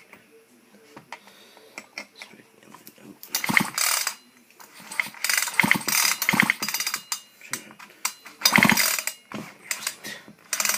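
Husqvarna chainsaw's recoil starter pulled three times, the starter rattling as it spins the engine over with the spark plug out for a spark test.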